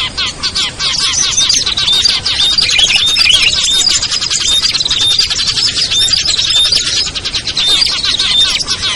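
Dense, continuous chattering of many small songbirds layered together, the mixed calls of a bird-luring (pikat) recording for small birds such as prinias and bulbuls, with a short high note repeating about once a second.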